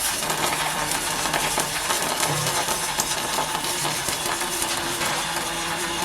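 MIG welding arc crackling and sizzling steadily, a dense run of sharp crackles, with a faint steady low hum beneath.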